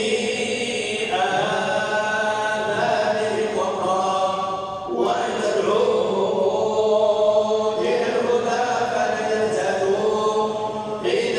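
The Quran being recited in a chanting voice, in long, held melodic phrases separated by short breaths.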